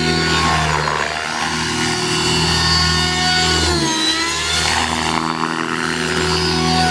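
RC helicopter flying aerobatic stunts: its motor and rotor whine is steady, dips in pitch a little before four seconds in as the rotor is loaded in a manoeuvre, then climbs back.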